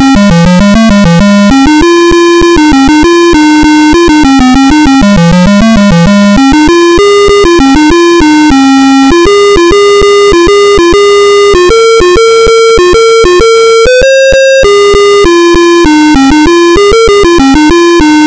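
Apple II's built-in one-bit speaker playing a single-line tune of buzzy, square-wave notes, one note at a time, stepping up and down in pitch.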